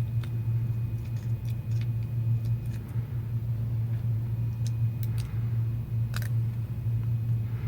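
Scattered light clicks and taps as small smartphone parts are handled and fitted during reassembly, over a steady low hum.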